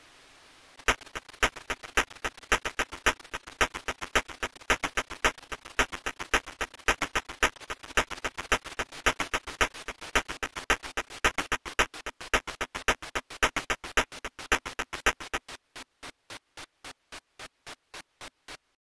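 Glitchy synthesizer arpeggio from an Ethera Soundscapes 2.0 Glitch Arp preset: fast, evenly spaced, clicky pulses that start about a second in. Around fifteen seconds in they change to a sparser, even pulse and stop just before the end.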